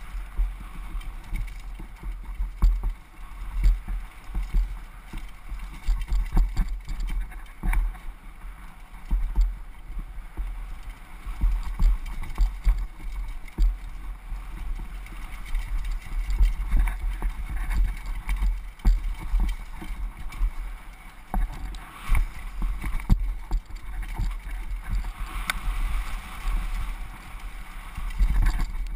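Wind buffeting a helmet-mounted camera's microphone as a downhill mountain bike rides fast over a rough, rocky trail. Irregular knocks and rattles from the bike and its suspension run throughout.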